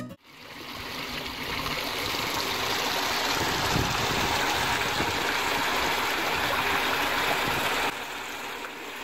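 Water running and trickling steadily in a small stone-edged garden pond. It fades in over the first second and drops quieter near the end.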